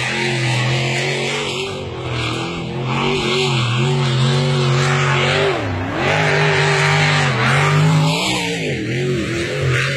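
Racing powerboat engine running hard at high revs over a loud rushing hiss, its pitch dipping and climbing back twice, about halfway through and again near the end.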